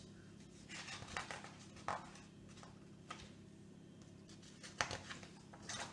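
Pages of a hardback picture book being handled and turned: a few soft paper rustles and taps over a quiet room hum.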